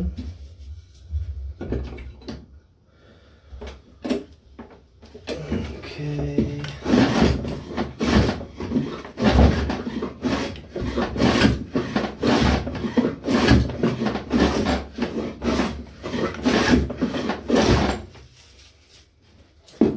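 Wooden board worked with a hand plane to take off the lip between glued boards. First come a few scattered handling knocks, then a steady run of planing strokes about one and a half a second, which stops near the end.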